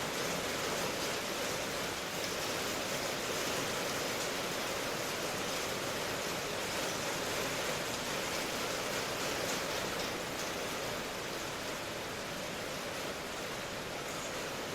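Steady rainfall, an even hiss that holds at one level throughout.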